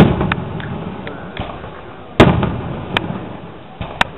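Aerial firework shells bursting: a loud boom at the start and another about two seconds later, each trailing off slowly, with a few smaller sharp cracks in between.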